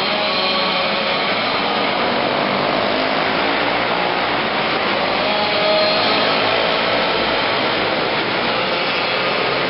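Several small race-car engines running hard together, a steady loud drone with wavering engine notes that swells slightly about six seconds in.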